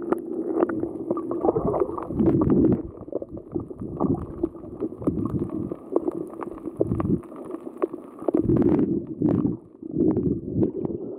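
Muffled underwater sound: a steady boat engine drone with frequent splashing and bubbling close by.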